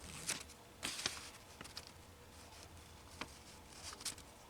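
Faint handling noise: a few light ticks and rustles of paper being handled.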